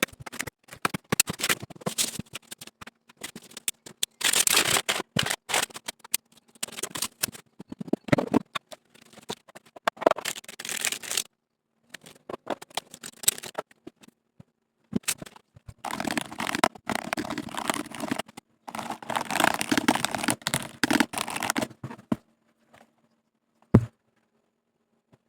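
Keyboard packaging being unboxed by hand: irregular rustling, scraping and sharp clicks of cardboard and wrapping, in bursts with short pauses, and one deep thump near the end.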